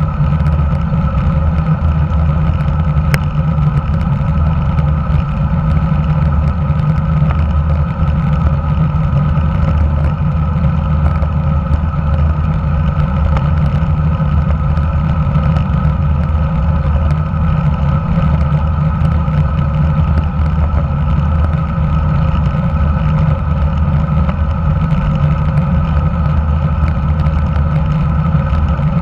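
Steady wind rush and road rumble on a handlebar-mounted action camera as a road bike rolls along at speed, mostly a deep even rumble.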